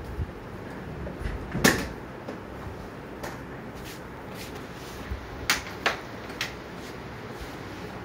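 Sharp plastic clicks and knocks as the opened indoor unit of a split air conditioner is handled: one loud click about two seconds in, then three more close together past the middle.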